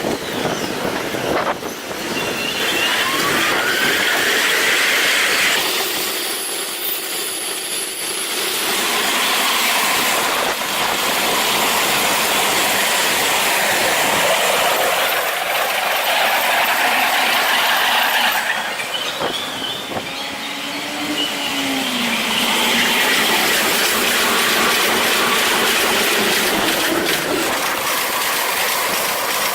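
Electric trains running on the rails, with wheel-on-rail noise and a rising whine about three seconds in.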